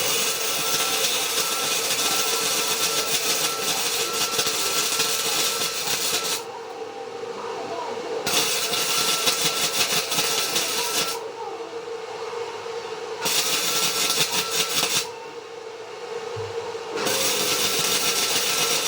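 Arc welding on steel: the arc crackles and sizzles in four runs of a few seconds each, stopping briefly between them as the welder lays slag-covered beads. A steady hum runs underneath throughout.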